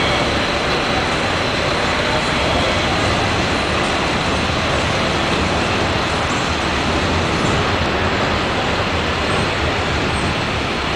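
NJ Transit Hudson-Bergen Light Rail car (Kinki Sharyo light rail vehicle) running into the station platform: a loud, steady noise with no distinct tones, easing slightly near the end.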